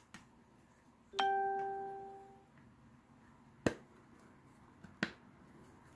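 A single bell-like chime about a second in, ringing and fading away over about a second. Later come two sharp clicks of plastic as the figure is fitted onto its stand.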